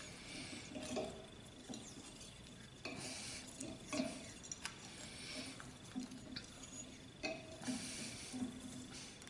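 Black adhesive tape being pulled off its roll in a few short, rasping pulls and wound around the steel handle of a leaf-spring slapper, with small knocks of the steel against the metal bench.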